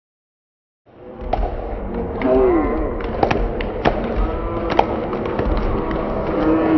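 Silence for about a second, then the sound of a wrestling bout in a gym: crowd voices and shouts over a steady room din, with several sharp knocks and thuds from the wrestlers on the mat.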